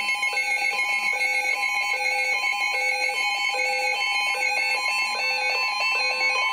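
Weather radio alert alarm: an electronic tone pattern that switches between a low and a high tone, repeating a little faster than once a second over a steady shrill tone. It marks an incoming severe thunderstorm warning.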